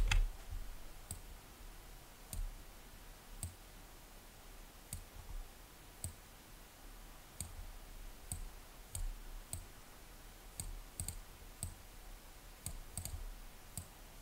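Computer mouse buttons clicking, single quiet clicks about once a second with a few quick double clicks in the second half.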